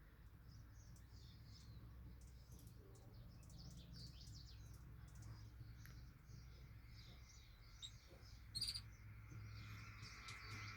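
Small birds chirping faintly: many short, high chirps scattered throughout, with one louder chirp about eight and a half seconds in, over a low steady hum.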